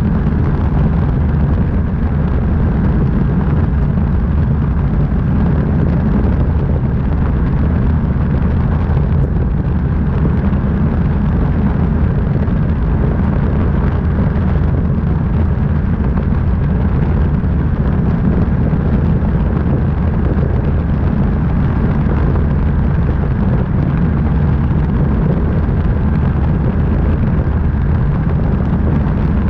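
Light aircraft's piston engine droning steadily in level flight, heard from a camera under the wing with heavy wind rush buffeting the microphone.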